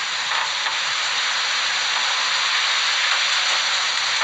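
A steady, even hiss with no voices.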